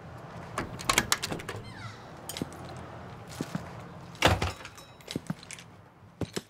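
Sounds of a wooden front door: a few sharp knocks and clicks, then the door being opened, with a louder thump a little past the middle and scattered small clicks near the end.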